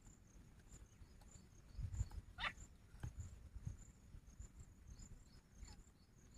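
A caged grey francolin gives one short whistled note that falls steeply in pitch about two and a half seconds in, with a fainter falling note near the end. Crickets chirp steadily throughout, with a few low thumps around the first call.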